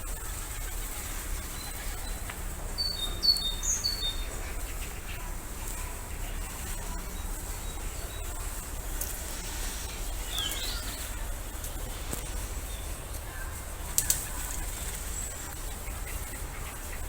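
Small birds chirping: a quick series of short high chirps about three seconds in and another brief call near the middle, over a steady low background hum. A sharp click comes near the end.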